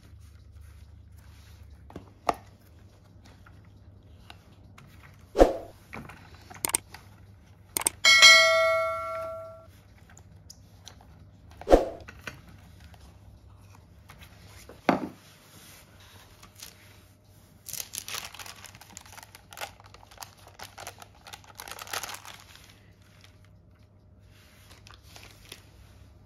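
Kitchen handling at a metal baking tray lined with baking paper: several dull knocks, then about eight seconds in a metallic clang that rings for a second and a half. Later comes a few seconds of baking-paper rustling.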